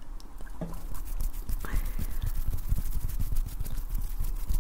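Hands rubbing and tapping close to a microphone: a busy run of quick scratchy clicks over low, muffled thumps, building up about a second in.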